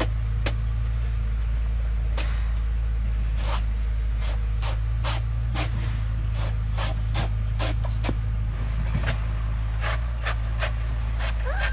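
Cleaver chopping through a banana stem, sharp knocks about two to three a second, over a steady low rumble.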